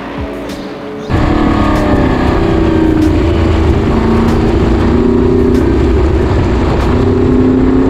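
McLaren M8F Can-Am car's big-block V8 at racing speed, heard from the cockpit: a loud, steady engine note whose revs drift slightly up and down. For about the first second it is a fainter car passing at speed heard from trackside, then the sound jumps to the loud in-car engine.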